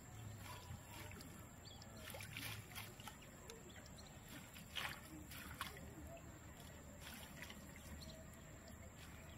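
Faint sloshing and rustling of a wet cast net being hauled in by hand from shallow, weedy pond water, with a few short, sharper swishes, the loudest about five seconds in.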